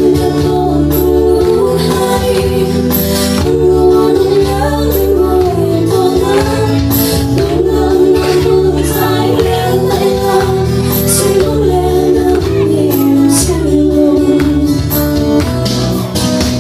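A song with a woman's voice over a backing track with steady chords and bass; the melody line wavers and glides in pitch.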